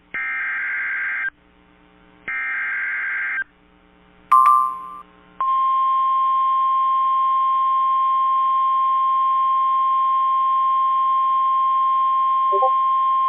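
Emergency Alert System SAME header on NOAA Weather Radio: the last two of three digital data bursts, each about a second long with short gaps between, then a brief beep, then the steady 1050 Hz weather radio alert tone starting about five seconds in. Together they announce and trigger alerting for a severe thunderstorm warning.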